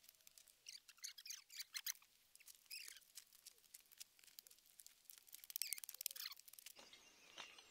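Faint chirping and twittering of small birds, in short clusters, with light ticks and scrapes of garden hoes working soil.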